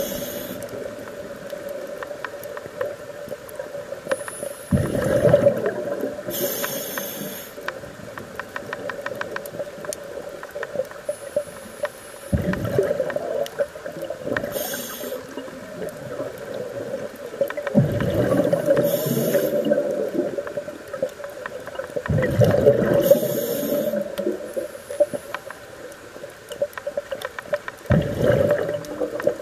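Scuba diver's regulator breathing heard underwater: short high hisses through the regulator and five gurgling rushes of exhaled bubbles, roughly every five seconds, over a steady hum.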